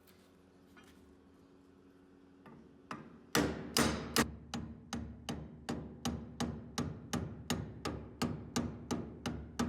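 A hammer striking repeatedly at an even pace of about three blows a second, each blow with a short ring, in the course of restoring a rusty machete. The blows begin a little over three seconds in and stop near the end.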